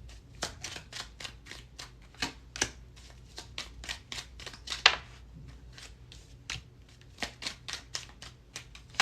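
A small Rider-Waite tarot deck being shuffled by hand: a steady run of short papery flicks and snaps, about three or four a second, with the loudest snap about five seconds in.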